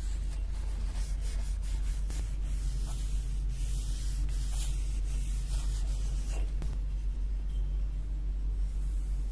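Repeated rubbing strokes, as in hand sanding or polishing a knife during restoration, over a steady low hum. The strokes ease off about six and a half seconds in.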